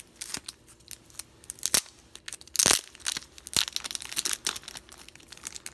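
A sealed plastic trading-card top loader being handled and opened by hand: irregular crinkling and clicking of plastic, with a louder rip about two and a half seconds in.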